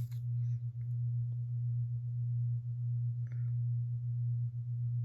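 Steady low hum, with a faint brief rustle about three seconds in.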